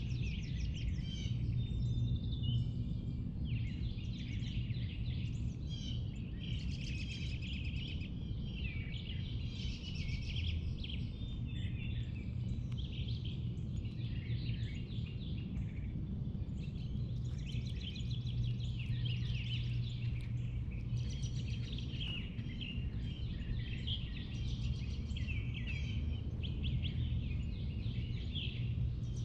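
Several songbirds singing and chirping at once, a busy mix of short trills and calls over a steady low hum.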